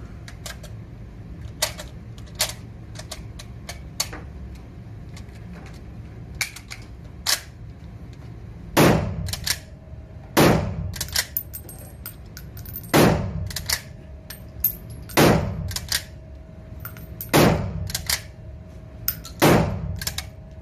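Short-barrelled Swiss K31 straight-pull rifle in 7.5x55mm Swiss fired six times, about two seconds apart, each shot echoing off concrete walls and followed by the clacks of the straight-pull bolt being cycled. Before the first shot come several seconds of scattered metallic clicks from the rifle being handled.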